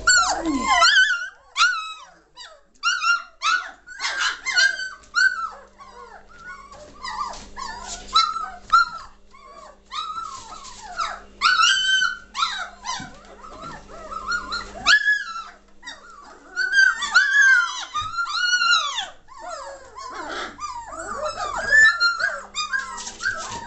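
A litter of three-week-old German Shorthaired Pointer puppies whining and yelping, many short rising-and-falling cries overlapping one another throughout.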